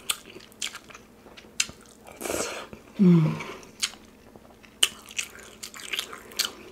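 Close-up eating sounds: chewing and biting with sharp, crunchy clicks, and a short low hum about three seconds in.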